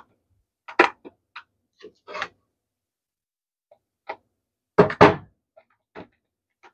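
Wooden spoon knocking and scraping in a disposable aluminum foil pan as sauce is spread across its bottom: a string of short, separate knocks, the loudest a close double knock about five seconds in.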